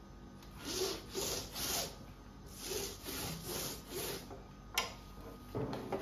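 A small roller loaded with hot beeswax rubbing back and forth over a plastic beehive foundation sheet, in two runs of three or four quick strokes. A sharp click follows near the end.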